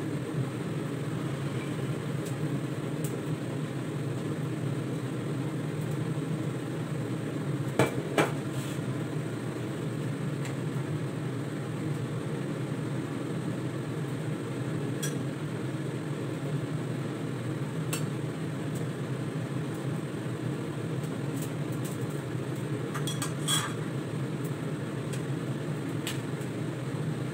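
A ladle and utensils clinking against a stainless steel soup pot and a bowl over a steady low hum: two sharp clinks about eight seconds in, scattered light taps, and a short cluster of clinks near the end.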